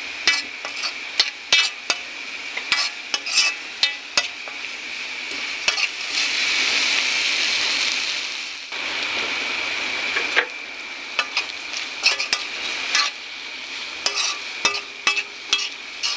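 Shrimp and noodles sizzling in a metal pan while a metal spatula stirs and scrapes them, with frequent sharp clicks of the spatula on the pan. The sizzle swells louder around six to eight seconds in.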